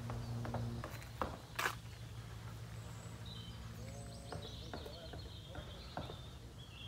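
Birds chirping and warbling in the trees from about three seconds in. Before that, a low steady hum stops just under a second in, and a couple of sharp knocks follow.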